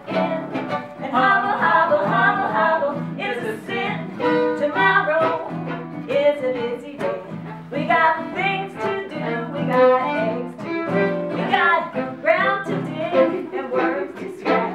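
Live fiddle music with a woman singing over it, a swinging jump-blues tune.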